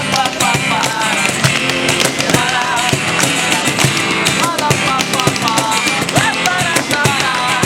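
A rock band playing live, with drums keeping a steady beat under guitar and a wavering melody line.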